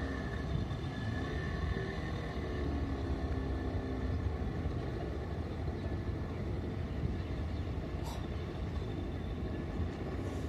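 Small fishing boat's motor running steadily as the boat heads away across the harbour, over a steady low rumble.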